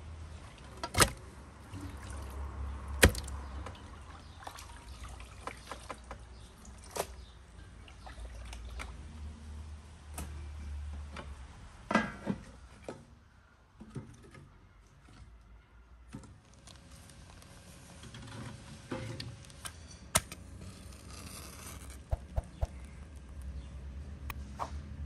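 A metal pot lid set and handled on a cooking pot, giving a few sharp clanks about a second, three seconds, seven seconds and twelve seconds in, over a low steady background with fowl clucking.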